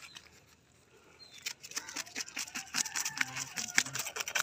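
Knife blade scraped quickly and repeatedly against a tilapia's skin, rasping off the scales in a rapid run of short scratchy strokes that starts about a second and a half in.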